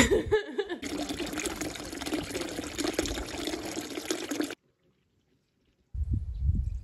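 Water pouring steadily from a plastic pipe into a water-filled stone trough, splashing, then cutting off abruptly about four and a half seconds in. A brief low rumble follows near the end.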